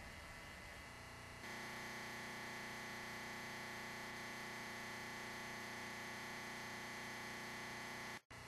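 Steady electrical hum and buzz, a stack of unchanging tones over a faint hiss, with no other sound. It steps louder about a second and a half in and cuts out for an instant near the end.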